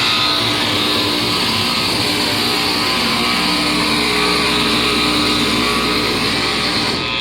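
Harsh noise music: a loud, dense wall of distorted electronic noise with faint buzzing tones inside it, holding steady.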